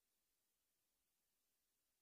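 Silence.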